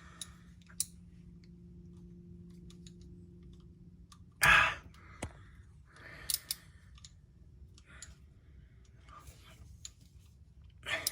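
Scattered clicks and light metallic clanks from a ratchet and sockets being handled on bolts, with one louder knock about four and a half seconds in.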